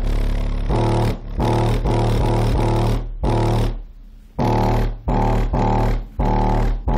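Loud bass-heavy music playing through a rebuilt JL Audio W7 subwoofer at high power, with short breaks in the music, the longest about four seconds in.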